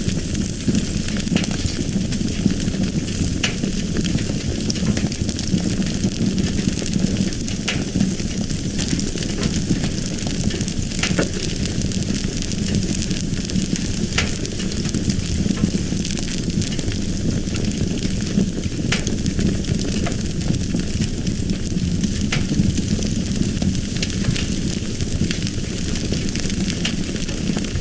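Fire burning: a steady rushing rumble with scattered sharp crackles and pops.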